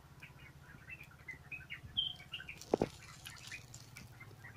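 Small birds chirping in quick short calls for the first couple of seconds, with one sharp click about three seconds in. The protective film is being peeled off a helmet's mirror visor, giving a faint crinkle near the end.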